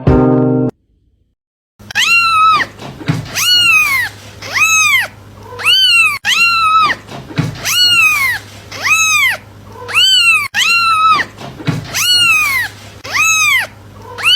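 A cat meowing over and over after a short silence, starting about two seconds in: short arching calls that rise and then fall in pitch, at a steady pace of a little more than one a second.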